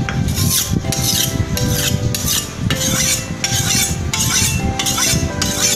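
Steel kitchen knife blade scraped back and forth against a sharpening block, about two rasping strokes a second.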